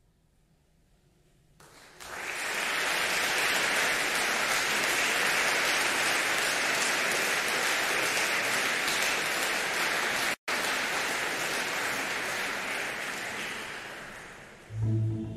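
Audience applauding, rising in about two seconds in after near silence, with a split-second dropout a little after the middle, then fading out as music begins at the very end.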